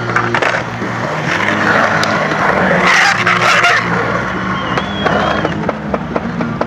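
Skateboard wheels rolling on a concrete bowl, the rushing roar building to its loudest about three seconds in as the board carves up the steep wall. Several sharp clacks of the board come at the start and through the second half.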